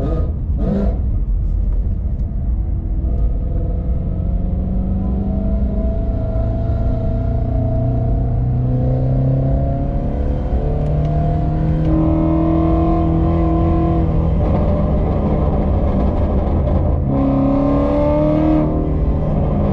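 Shelby GT350R's 5.2-litre flat-plane-crank V8 exhaust on the move, with two sharp pops at the start. The engine note then climbs slowly in steps, drops back briefly and climbs again.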